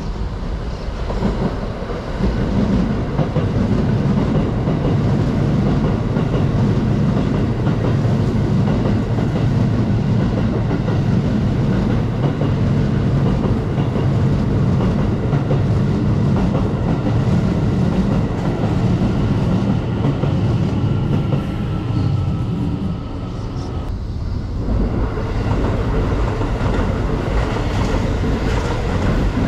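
Commuter electric trains passing on the line, wheels clattering over the rails over a loud, steady rumble. The sound dips briefly about three quarters of the way through, then rises again.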